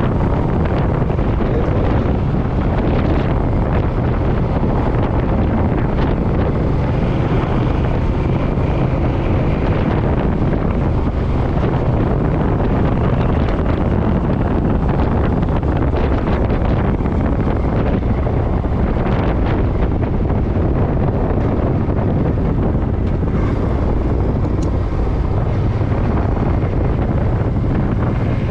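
Suzuki M50 V-twin motorcycle running steadily on the road, with a steady low engine hum under heavy wind rushing over the microphone.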